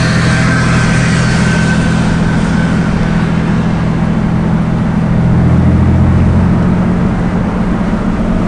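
Car engine and road noise heard from inside a moving car: a steady low drone that swells slightly about midway.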